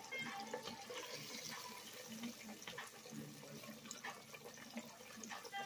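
Buttermilk-battered chicken frying in a pot of hot vegetable oil: a faint, steady sizzle dotted with small crackling pops.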